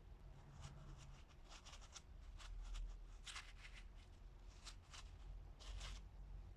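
Faint small handling sounds: an irregular string of light clicks and short scrapes, a few close together around the middle.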